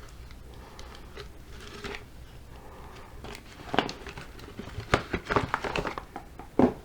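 Packaging being handled: crinkling and rustling with scattered sharp crackles, busiest in the second half.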